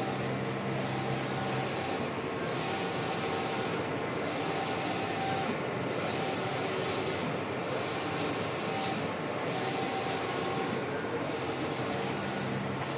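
Large-format inkjet printer printing on adhesive vinyl: the print head carriage runs back and forth across the media with a steady mechanical hiss, which changes in a regular beat about every second and three-quarters as each pass ends and the carriage reverses.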